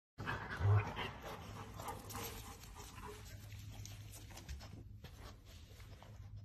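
A Rottweiler panting with its head pushed under a sofa, with a dull thump about a second in.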